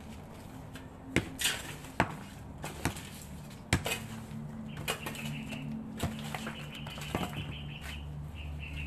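Chunks of broken concrete rubble knocking and clattering as they are pulled out of an opened concrete tomb by hand and dropped: about seven separate sharp knocks. A steady high trill runs under them from about halfway.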